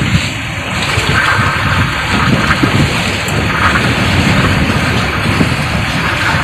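Strong wind rushing and buffeting the microphone over choppy open sea, with waves and water splashing alongside the boat.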